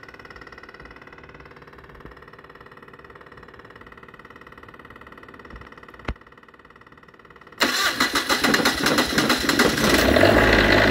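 Onan 8000-watt diesel RV generator being started. A steady electric hum runs while the start switch is held, then a click. About 7.5 s in the starter cranks the engine with a fast rhythmic chug, and it catches and settles into a steady running hum near the end: the rebuilt generator's first start.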